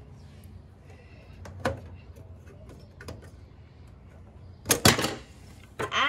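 Light clicks and knocks of memory modules being handled against the metal server chassis, with a louder pair of knocks about five seconds in.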